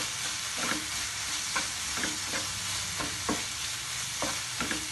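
Spatula stirring and scraping tomatoes, onions and chilli powder sautéing in oil in a nonstick pan: a steady sizzle with short scraping strokes about twice a second.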